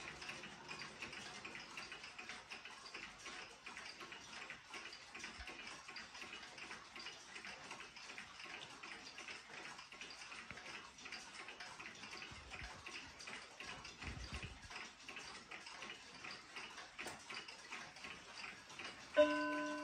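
Several pendulum wall clocks ticking together in a dense, overlapping patter. Near the end, the Hamilton Headmaster regulator wall clock starts its hour chime with a loud struck note.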